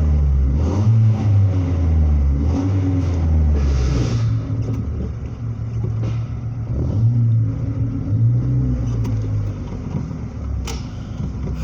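Chevrolet Chevy's engine running through a modified exhaust with a bullet muffler and the catalytic converter kept, the original resonator removed: a low exhaust rumble, with the engine speed rising and falling several times at low speed.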